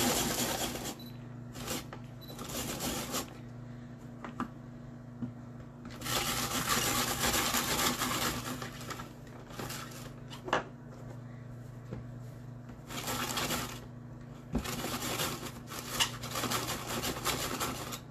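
Hand-cranked Tupperware Fusion Master rotary cone grater shredding carrots: spells of scraping, grating noise lasting one to three seconds, broken by short pauses as the cranking stops and starts.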